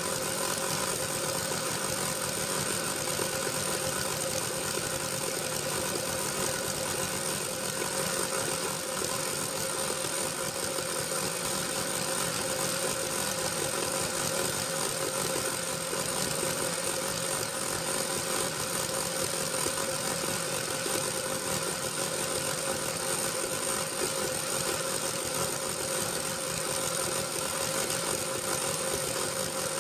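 A machine running steadily with an even hum and a constant high whine, unchanging throughout; it cuts off abruptly just after.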